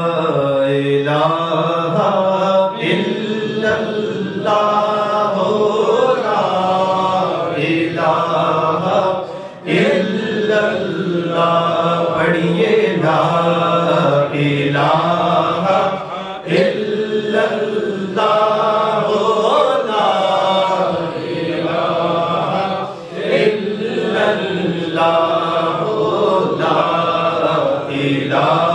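A man's voice chanting an Islamic devotional recitation into a microphone, in long melodic phrases broken by short pauses for breath.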